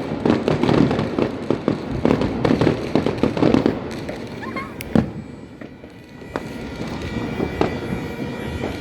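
Fireworks going off: a dense run of bangs and crackles for the first few seconds, one loud bang about five seconds in, then scattered bangs after a brief lull.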